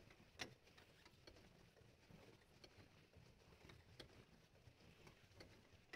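Near silence with faint, scattered clicks and taps.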